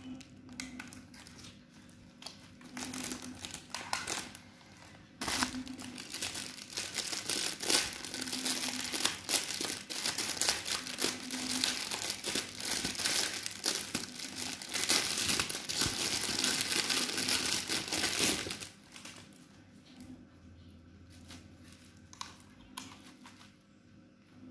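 Black plastic bubble-wrap packaging being crumpled and handled: scattered crinkles at first, then about a second in from five seconds a dense, continuous crinkling that stops suddenly near eighteen seconds, followed by faint occasional rustles.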